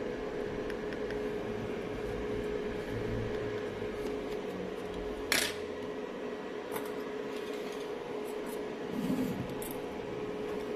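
A sharp metallic click a little past five seconds in, followed by a few lighter clicks and rattles of small objects, over a steady electrical hum.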